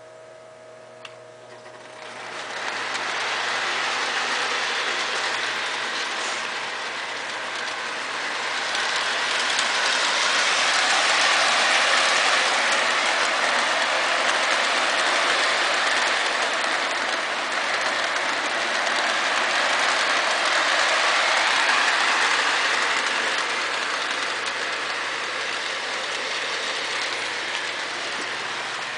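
Lionel model train, a steam-type locomotive pulling box cars, running on the layout's metal track. A steady rolling rumble of wheels and motor starts about two seconds in and grows louder through the middle as the train passes close.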